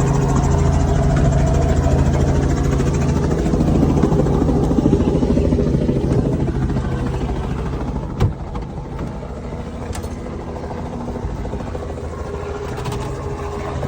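Helicopters running on the ground, rotors beating with a steady engine note. About eight seconds in there is a short knock, and the sound drops a little.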